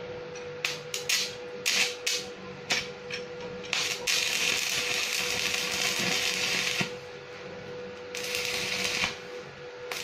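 Stick (arc) welding electrode being struck on steel. It catches in several short crackling bursts, then holds a steady crackling arc for about three seconds, and strikes briefly twice more near the end.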